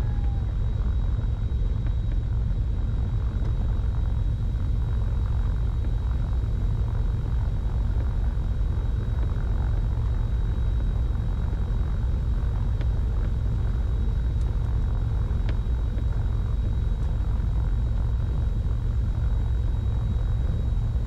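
Twin six-cylinder Continental piston engines of a Cessna 310Q running at low taxi power, heard inside the cabin as a steady low drone, with a faint steady high whine above it.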